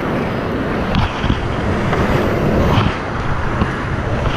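Whitewater rapids rushing loudly around a kayak, a dense steady roar of churning water, with a few paddle splashes and wind buffeting the microphone.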